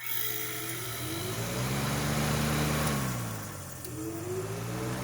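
Fan motor of a 1960s Mitchell dehumidifier starting up with a steady hum. Its pitch rises as it spins up, drops about three seconds in, then climbs again near the end. The motor is stiff and in need of oiling.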